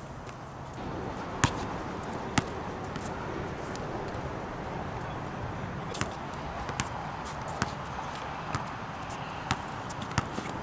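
A basketball bouncing on an outdoor hard court: scattered single bounces at an uneven pace over a steady background hiss. The two loudest come about a second and a half and two and a half seconds in.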